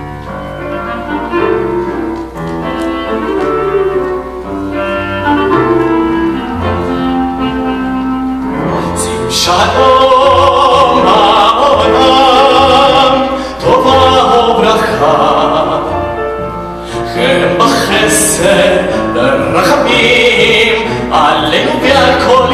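Tango-style instrumental introduction played by clarinet, piano and double bass. The ensemble grows louder about nine seconds in.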